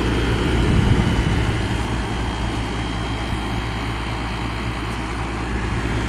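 1988 Emerson Quiet Kool 7600 BTU window air conditioner running under cooling load: a steady hum from the compressor under the blowing of the fan, heard at the unit's hot back side.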